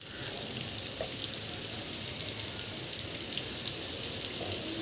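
Steady rain falling, with scattered drops ticking sharply close by.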